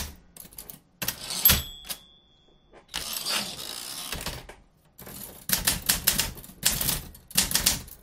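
Manual typewriter being typed on: key strikes clacking, then a sharp strike with a short bell-like ring about 1.5 s in, a rasping carriage stretch around 3 to 4.5 s, and rapid, dense typing from about 5 s on.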